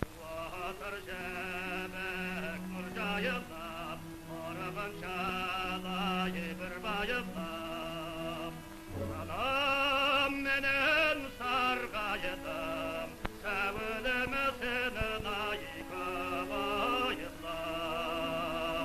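Operatic singing with a wide vibrato over orchestral accompaniment, from an archival recording, with a brief break about eight seconds in.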